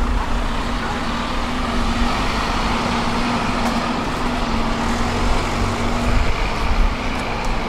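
Street traffic with a city bus running, a steady low hum over the road noise that stops about six seconds in.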